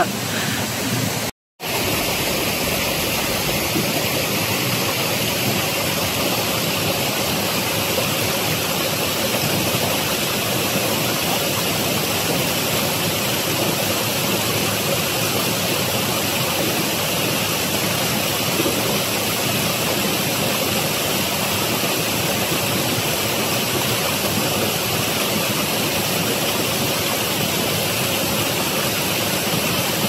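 Steady, loud rush of fast-flowing water from a mountain river or waterfall, even throughout. It breaks off into a split second of silence about a second and a half in, then resumes unchanged.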